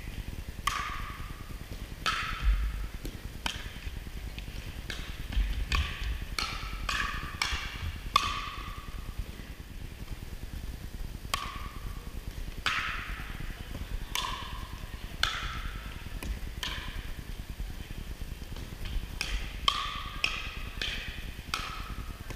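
Pickleball paddles hitting a hollow plastic pickleball in rallies, a string of sharp pocks at an uneven pace, each ringing briefly in the gym.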